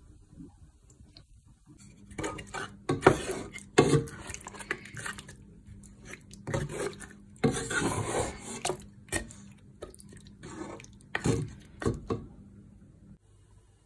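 A wooden spatula stirring thick mutton curry in a cooking pot, scraping and knocking irregularly against the pot's sides and bottom. The stirring starts about two seconds in and stops near the end.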